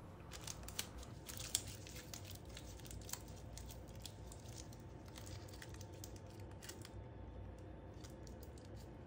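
Clear packing tape being pulled off and wrapped around a bare four-cell lithium-ion battery pack, with quiet crackling and sharp ticks, mostly in the first three seconds, then faint handling noise.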